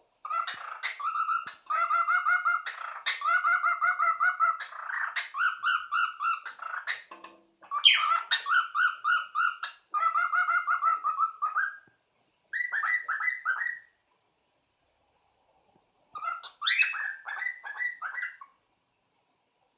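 Young cockatiel whistling and warbling: long phrases of rapid repeated trilled notes, then two shorter bursts with a pause of about two seconds between them.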